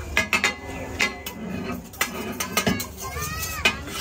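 Steel pav bhaji masher and metal spatula knocking and scraping on a large flat griddle as the bhaji is mashed: a run of sharp, irregular metal clanks.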